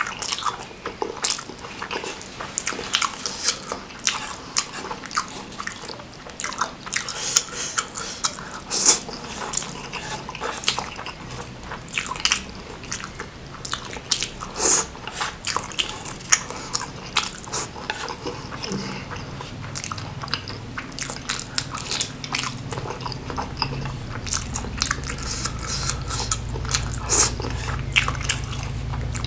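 Close-miked chewing and biting of spicy noodles: irregular wet mouth clicks and smacks with no talking. A low steady hum comes in about two-thirds of the way through.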